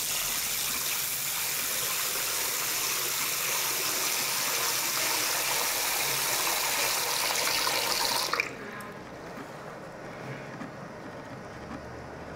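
Bathroom sink tap running a steady stream into the basin and down the drain, then turned off sharply about eight seconds in.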